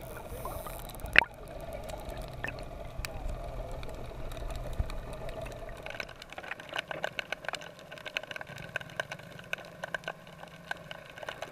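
Underwater sound through a GoPro's waterproof housing on a crab net: a low water rumble with a sharp knock about a second in. After about six seconds the rumble drops away, leaving scattered clicks and crackles.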